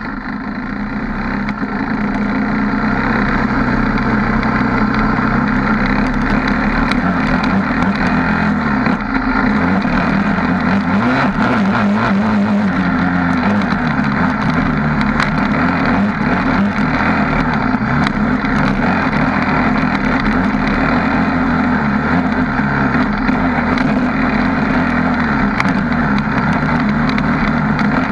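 Suzuki LTR 450 quad's single-cylinder four-stroke engine running, heard close up from the front bumper; it fades in over the first second or so, then holds a steady, loud drone.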